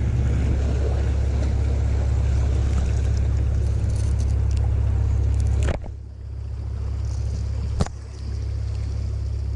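Wind buffeting the microphone: a heavy, steady low rumble. It drops with a sharp click about six seconds in, then comes back weaker, with another sharp click near eight seconds.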